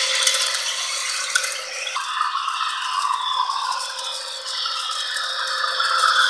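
A model electric train running on sectional track: the wheels clatter over the rail joints and the small motor whirs. The sound drops about two seconds in as the container cars move off, then builds again near the end as another locomotive comes closer.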